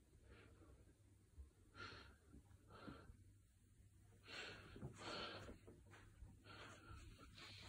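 Near silence: quiet room tone with a few faint, soft breathy noises close to the microphone.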